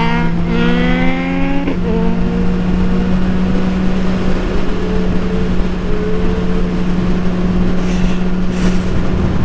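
Motorcycle engine revving up in one gear for about a second and a half, dropping in pitch at a shift, then running at a steady pitch under a constant drone.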